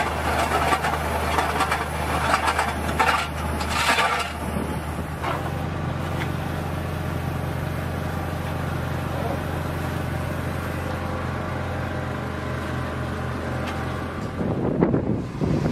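The engine of a manhole-cutting rig's carrier vehicle running steadily, with clattering and grinding over it in the first four seconds. Near the end a loud rushing noise covers it.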